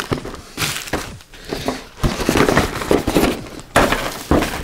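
Plastic packaging crackling and clicking in irregular bursts as a vacuum-formed miniatures tray is handled.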